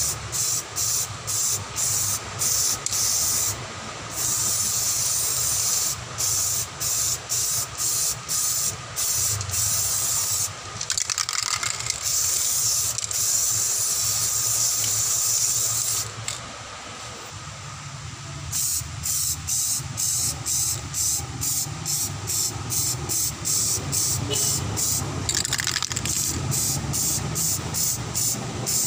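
Samurai aerosol spray paint can hissing in quick short bursts, about two a second, with a few longer steady passes in between.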